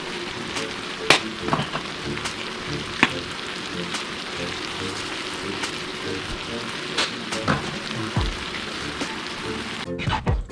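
Meat frying in a pan: a steady sizzle with scattered sharp pops and crackles, cutting off near the end.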